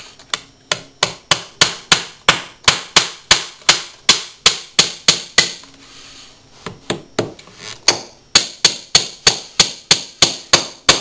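Claw hammer driving oval nails into the corner of a skirting board: steady, rapid blows of about three to four a second, in two runs with a pause of about a second in the middle.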